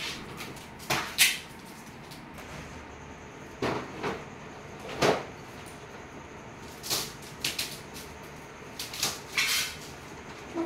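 Scattered knocks, clicks and short rustles from handling a split air conditioner's plastic indoor unit while it is unwrapped and fitted onto its wall mounting plate: about eight separate sounds over ten seconds.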